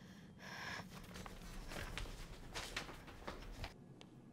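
A quick breath, then a run of hurried footsteps and shuffling that stops abruptly near the end.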